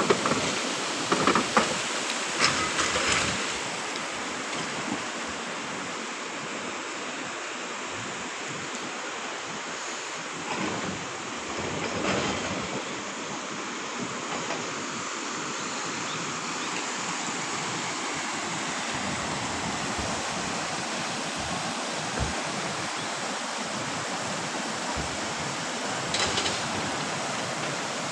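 Shallow, muddy stream rushing steadily over stones and gravel, with a few sharp knocks in the first three seconds.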